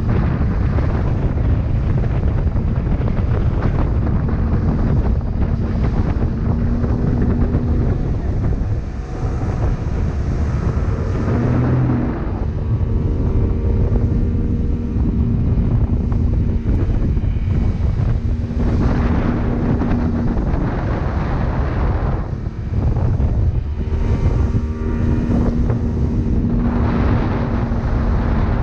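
Speed boat engine running steadily at speed with a constant hum, under heavy wind noise on the microphone and rushing water.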